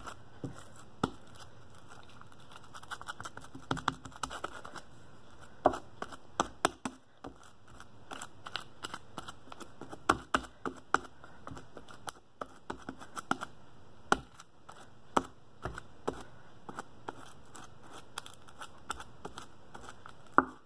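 Cloud slime being stretched, squeezed and pulled apart by hand, with irregular sticky clicks, pops and tearing crackles.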